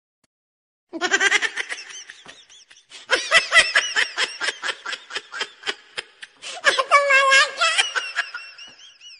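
Laughter: a long run of rapid, high-pitched laugh pulses starting about a second in, with a squeakier stretch near seven seconds, trailing off near the end.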